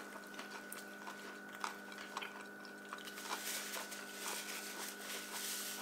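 A person chewing fast food: small irregular wet mouth clicks and smacks, over a faint steady electrical hum.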